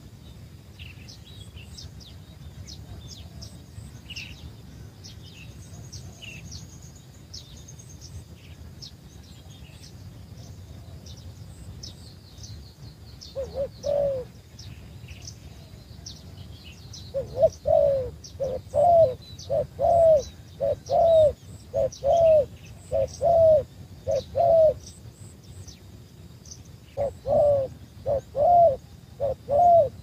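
A dove cooing in short, evenly repeated coos: a couple about halfway through, then a run of about eight, then four more near the end. Small birds chirp and twitter high above them throughout.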